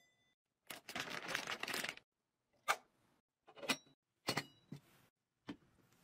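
Handling noises: a rustle lasting about a second, then several separate sharp clicks and taps about a second apart.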